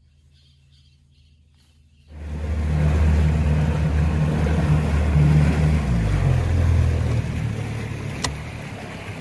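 Outboard motor boat running at speed: a low engine drone with a rush of wind and water starts suddenly about two seconds in. The engine pitch drops around six seconds in and the sound eases off toward the end.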